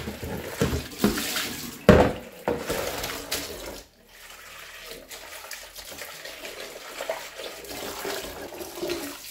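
Kitchen tap running into a plastic bowl in a steel sink as soaked black-eyed beans are tipped in from a metal bowl and washed by hand to float off their skins. There is a sharp knock about two seconds in, then steady running water.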